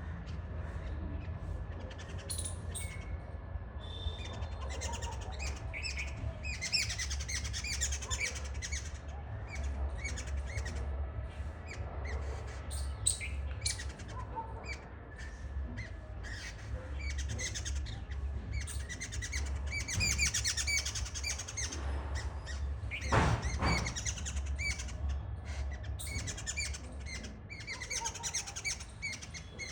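Several birds chirping and calling in quick, overlapping bursts, with one louder harsh call about three-quarters of the way through, over a steady low rumble.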